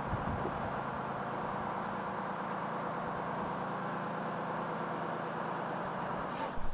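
Steady mechanical hum and hiss of locomotives standing at rest, with a brief burst of louder, hissier noise right at the end.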